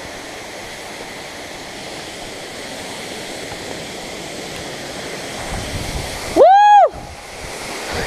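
Waterfall rushing steadily. About six and a half seconds in, one loud, short call rises and then falls in pitch over the rushing water.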